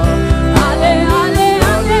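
Gospel worship music: a voice singing over a band, with sustained keyboard-like chords and drum hits about twice a second.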